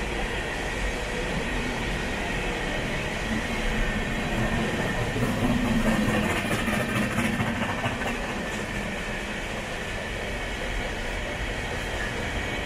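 Coal hopper cars of a long freight train rolling past close by: a steady rumble and clatter of steel wheels on the rails, a little louder in the middle.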